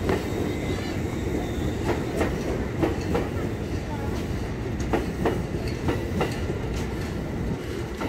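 An electric commuter train rolling slowly past along the platform: its wheels clack over rail joints in irregular clicks, often in pairs, over a steady low rumble.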